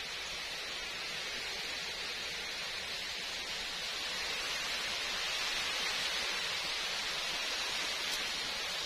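Steady outdoor background hiss, brightest in the upper-middle range, with no distinct events. It grows slightly louder about halfway through.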